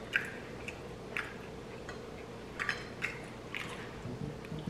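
People chewing food with wet mouth sounds, and a few sharp smacks spread through the stretch.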